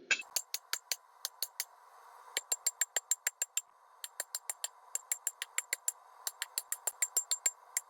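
Hammer blows on hot steel over an anvil, struck in quick runs of about five a second with short breaks between, each blow ringing, over a steady hiss. This is the hammering that forms a leaf shape from the end of a bar.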